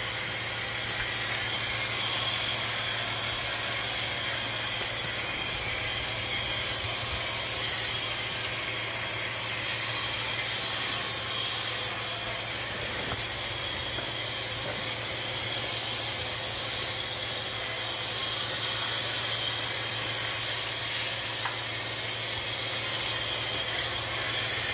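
Pressure washer spraying soapy water through a foam lance onto cattle: a steady hiss of spray, with a steady low hum underneath.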